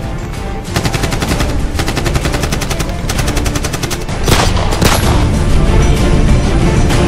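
Rapid automatic rifle fire in long bursts over dramatic film music, followed about four seconds in by two louder blasts.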